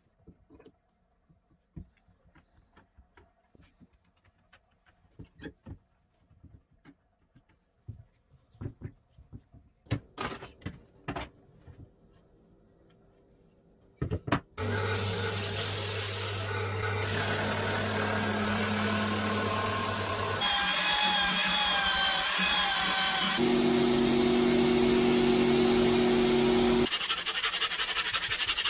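Light clicks and knocks of bar clamps and plywood parts being handled on a wooden workbench, then, about halfway, loud steady background music with held notes that change every few seconds.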